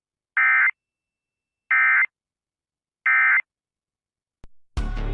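Emergency Alert System end-of-message code: three short, identical bursts of buzzy digital data tones, about a second apart, marking the end of the alert. Just before the end there is a click, and the radio station's programme audio cuts back in.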